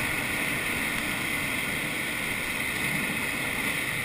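Steady rushing hiss of air streaming past a glider's canopy in flight, heard inside the cockpit.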